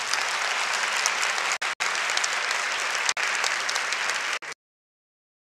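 Audience applauding steadily, with two brief dropouts, then cutting off abruptly about four and a half seconds in.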